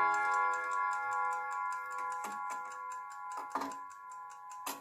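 Kieninger mantel clock's chime rods ringing out from a bim-bam strike, the chord slowly fading, over the movement's steady ticking. Two sharp clicks sound, one about three and a half seconds in and one near the end.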